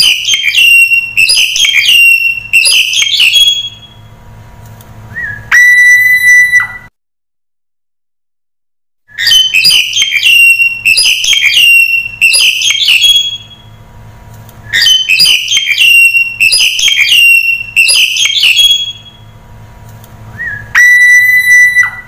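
Black-collared starling calling: quick runs of loud, sliding whistled and harsh notes, repeated three times in nearly the same pattern. Two of the runs end in one long steady whistle, and there is a silent gap of about two seconds near the middle.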